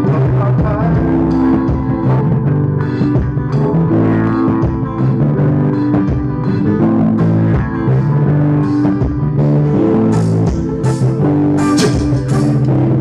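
Live band playing an instrumental passage: acoustic and electric guitars over bass and drums, loud and continuous.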